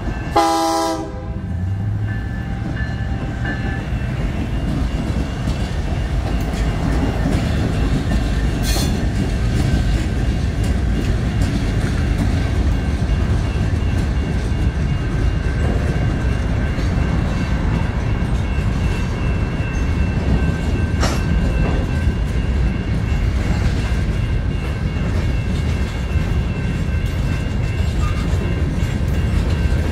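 Freight cars of a Union Pacific freight train rolling through a grade crossing with a steady low rumble, while the crossing's warning bell rings throughout. Near the start, the lead EMD SD59MX locomotive's horn gives a short final blast, the loudest sound.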